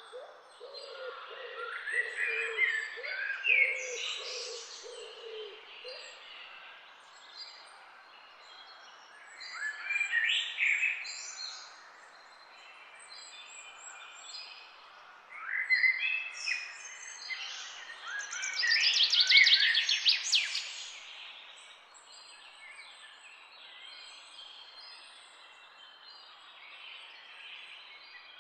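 Several wild birds singing and calling in bursts of chirps and quick trills, with a low, repeated cooing note underneath for the first few seconds. The song peaks in a rapid trill about two-thirds of the way through.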